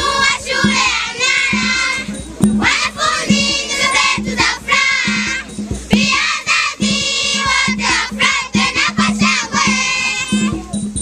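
A group of schoolgirls singing together over a steady beat of about two pulses a second.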